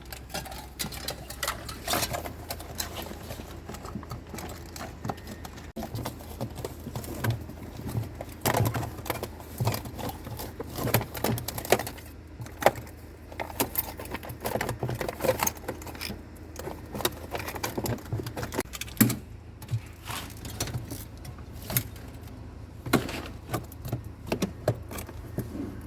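Irregular clicks, taps and light rattles of hand work as a replacement drain heater plate is fitted in a refrigerator's freezer compartment, over a low steady hum.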